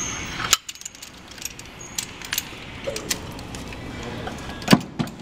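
Metal clinks and knocks from a cylinder liner and liner puller as the liner is pulled out of an International DT466 diesel block. There is a sharp knock about half a second in and two more near the end.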